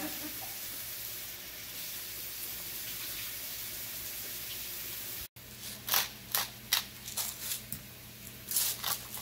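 Pot of spaghetti at a boil: a steady bubbling hiss. After a cut about five seconds in, a run of sharp clicks and rattles from a seasoning container worked over a plastic bowl of raw shrimp.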